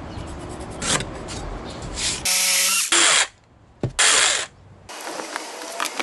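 Workshop sounds in short, abruptly cut snippets, with two brief loud bursts of a power tool about halfway through, separated by a near-quiet gap.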